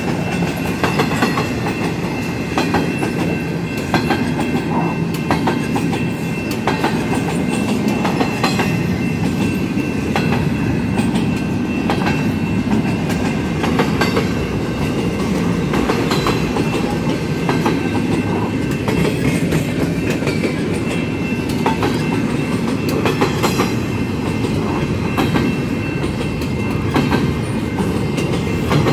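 CSX double-stack intermodal freight train rolling past: a steady, loud rumble of steel wheels on rail, with repeated clickety-clack as the wheel sets go over the rail joints.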